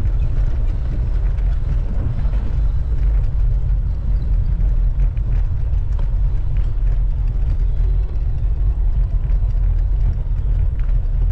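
Wind buffeting the microphone while riding a bicycle: a loud, steady, low-pitched noise with no breaks.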